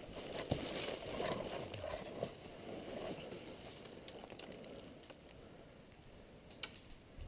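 Footsteps rustling through dry leaf litter and undergrowth, with scattered crackles and twig snaps, quieter after about four seconds. A couple of sharp clicks near the end.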